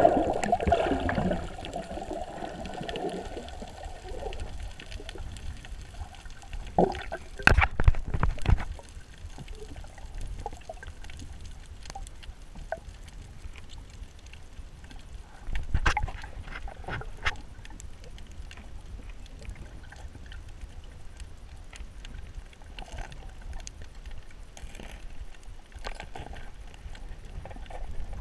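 Underwater sound heard by a diving camera: a loud bubbling, rushing wash as the diver goes under, easing off after about four seconds. Then a steady low rumble of water with scattered knocks and clicks, the loudest run about eight seconds in and another around sixteen seconds.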